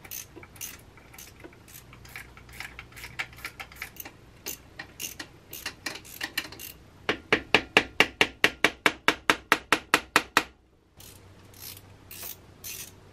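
Hand ratchet wrench working a nut in an engine bay: scattered light metal clicks and taps of the tool at first, then a fast, even run of loud ratchet clicks, about five a second for three seconds or so, that stops abruptly.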